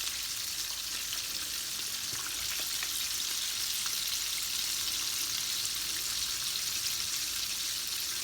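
Flour-coated chicken drumsticks deep-frying in hot oil in a wok on medium-high heat: a steady sizzle with fine crackling.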